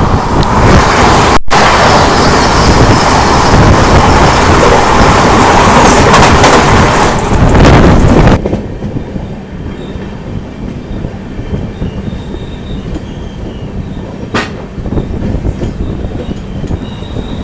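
Express passenger train running at speed: loud rushing noise of wheels on rails and wind. It cuts off abruptly about eight seconds in to a much quieter steady rumble with a faint hum.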